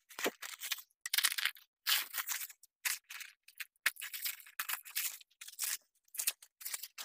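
Plastic wrapping crinkling and rustling in quick, irregular bursts as it is pulled off a steel armour piece.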